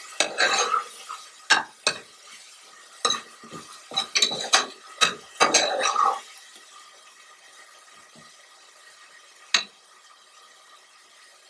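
Metal slotted spoon scraping and clinking against an aluminium pressure cooker as onions and ground masala are stirred while sautéing. The stirring stops about six seconds in, leaving a faint steady hiss, with one last clink near the end.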